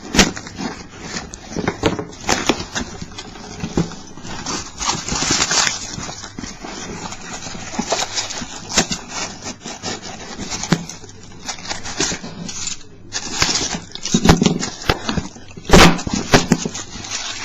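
Rustling and crinkling of a small postal packet being opened, with irregular clicks and clatters of small brass lever cabinet locks and their keys being handled; a sharp, loud click comes near the end.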